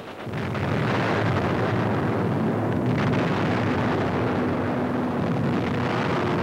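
Continuous loud roar of a bombing raid on an old 1940s newsreel soundtrack: bomb explosions and diving aircraft blended into one dense rumble, with a brief sharp crack about three seconds in.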